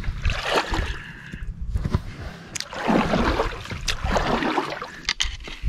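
River water sloshing and splashing against a small inflatable boat, with irregular swashes and low rumbling knocks underneath and a few sharp clicks near the end.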